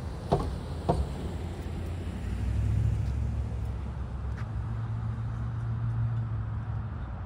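Two sharp thumps as a pickup truck rolls over the rails of a railroad grade crossing, then a low, steady engine rumble.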